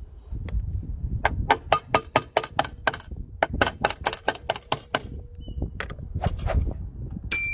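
A socket ratchet clicking rapidly, about five clicks a second, as it runs a nut onto an aluminium awning bracket. It pauses, then gives a few more clicks. Near the end there is a single ringing metallic ding.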